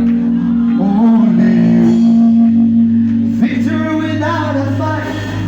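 Live gospel worship music: a band with sustained keyboard chords, bass and guitar, with a singer's voice coming in over it.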